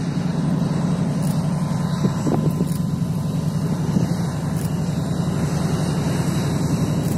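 3TE10M diesel freight locomotives approaching, their 10D100 two-stroke opposed-piston diesels running steadily under heavy load with a low drone.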